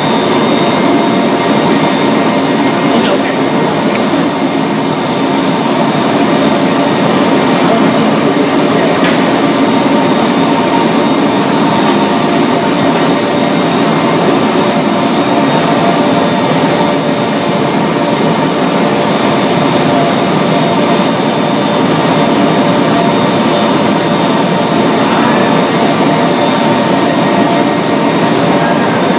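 BOPP film lamination machine running: a loud, steady mechanical whir with a thin, steady high whine over it.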